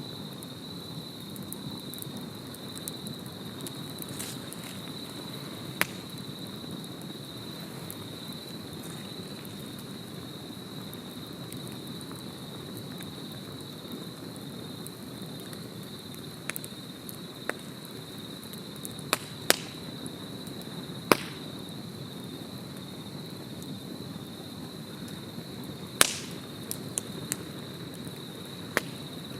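Wood campfire burning, with sharp crackling pops scattered through, several close together past the middle, over a steady high-pitched tone.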